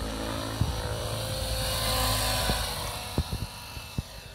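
Electric RC scale helicopter (Hughes 500E on Mikado Logo 690 SX mechanics) in flight: a steady whine from the motor and rotor with blade hiss. It swells to its loudest about halfway through and then fades as the helicopter draws away.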